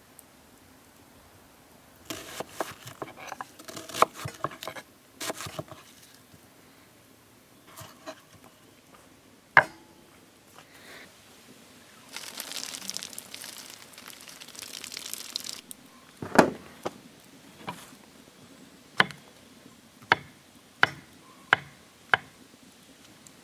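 A kitchen knife slicing a red onion on a wooden cutting board, a quick run of cuts in the first few seconds. Water then pours from a plastic jug's spigot onto mushrooms for a few seconds, with a couple of single louder knocks before and after. Near the end, a knife slices mushrooms against the board in sharp knocks about every two-thirds of a second.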